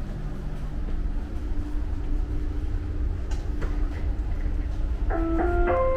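Dubai Metro train running, heard from inside the car: a steady low rumble with a faint steady hum. About five seconds in, a chime of three stepped electronic notes begins.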